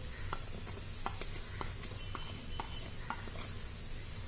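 Light, irregular clicks and taps, about eight of them, as a plate of spices is tipped and knocked over a nonstick kadhai of raw chicken. A steady low hum runs underneath.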